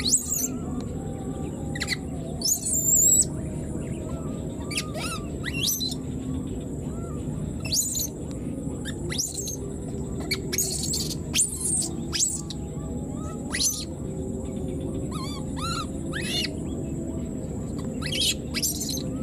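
Newborn baby macaque giving a string of short, high-pitched calls every second or so, calling for its mother; the loudest come about three seconds in. A steady high-pitched whine runs underneath.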